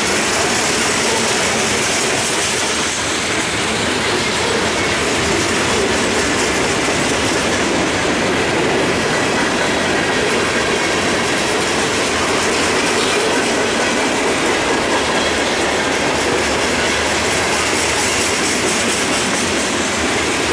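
Freight cars of a long mixed train (covered hoppers and boxcars) rolling past at close range: steady, loud wheel-on-rail noise.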